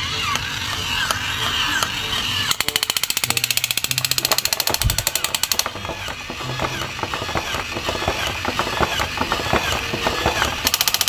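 Battery-operated toy soldier figures with rifles playing electronic gun sound effects. A fast machine-gun rattle plays, then a string of repeated electronic zaps, and the rattle comes back near the end.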